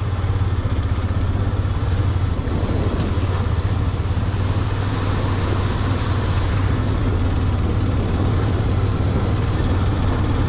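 A motor vehicle's engine running steadily while on the move: a low, pulsing engine hum under road and wind hiss, with the hiss swelling for a few seconds around the middle.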